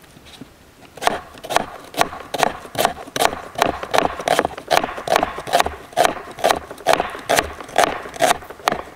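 Kitchen knife chopping a red onion on a wooden chopping board: the blade knocks hard on the board in a steady rhythm of about two or three strikes a second, starting about a second in.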